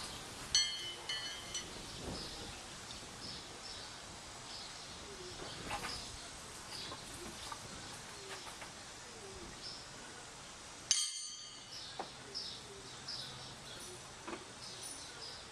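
Backyard birds calling: a steady run of short, high chirps, with a louder call that has several overtones just after the start and another about 11 seconds in.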